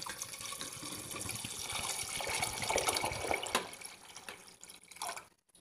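Water poured from a metal jug into an aluminium pressure cooker onto soaked white beans, a steady splashing stream that fades away and stops near the end.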